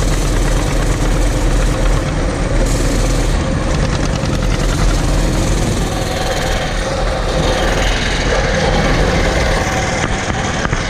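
Small motorbike engine running steadily while riding along a dirt road, mixed with wind on the microphone and the distant tractors ahead.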